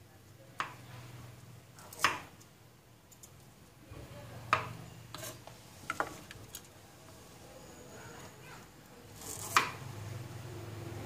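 Kitchen knife chopping baby corn on a wooden chopping board: separate sharp knocks at an irregular pace, about seven in all, over a faint low hum.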